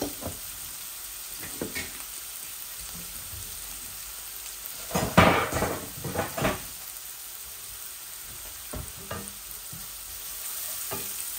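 Sliced red onion and carrot with ground spices sizzling steadily in a nonstick wok, with a short burst of knocks and clatter about halfway through. Near the end a wooden spatula stirs the vegetables, scraping against the pan.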